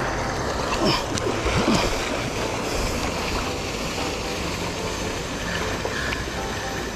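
Steady rush of wind and water aboard a boat at sea, with waves splashing, a little louder about one and two seconds in.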